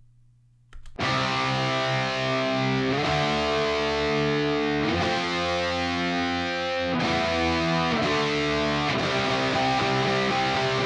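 Distorted electric guitar played through the ML Sound Lab ML800 Marshall-style amp-simulator plugin on its Vintage Rock preset, coming in about a second in and holding chords that change about every two seconds.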